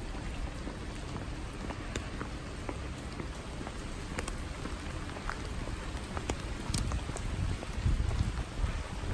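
Steady rain falling, with many scattered individual drop ticks over an even patter. A low rumble swells near the end.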